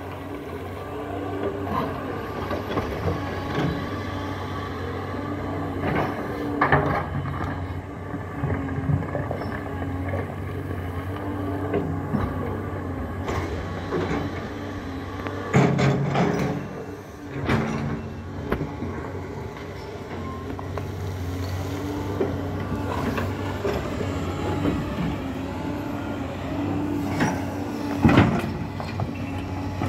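Doosan DX225 hydraulic excavator working, its diesel engine running with a steady hum while the steel bucket scrapes and digs through rocky soil. Several sharp knocks of bucket and rocks stand out, the loudest near the end.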